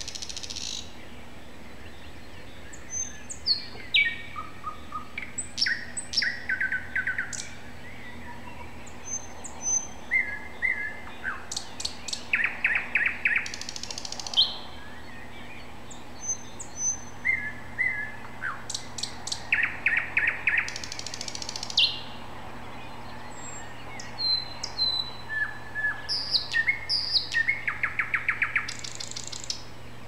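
A songbird singing a continual string of short, varied phrases: clear whistles, high notes and fast runs of repeated notes, each phrase a second or two long with brief pauses between.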